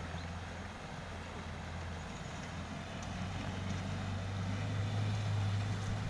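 Low, steady engine drone of a pickup truck wading through a fast-flowing flooded river, growing louder about halfway through, over a steady hiss of rushing water.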